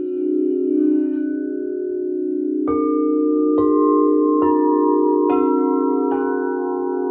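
Crystal singing bowls ringing in a steady layered drone. About two and a half seconds in come five strikes, a little under a second apart, each adding a new ringing tone at a different pitch.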